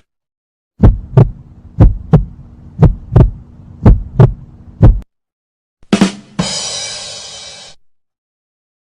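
Heartbeat sound effect: paired low thumps about a third of a second apart, one pair a second, over a steady low hum. It stops at about five seconds, and a short hit follows, then a noisy sound that fades out over about a second and a half.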